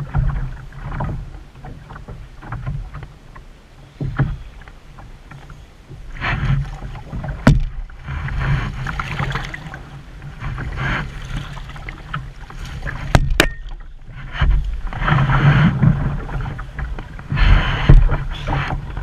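Wind buffeting the microphone and choppy lake water slapping against a canoe's hull in surges every few seconds, with a few sharp knocks on the hull about halfway through.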